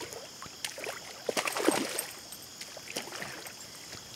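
A hooked bass splashing in shallow water at the bank as it is grabbed and lifted out by hand: a run of short, irregular splashes, loudest about a second and a half in.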